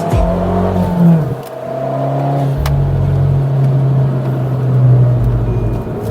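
Abarth 595's 1.4 turbo four-cylinder sounding through a Magneti Marelli 'bombardone' R2 aftermarket exhaust. A short rev about a second in falls away, then the engine runs at a steady pitch that climbs slightly before easing off near the end.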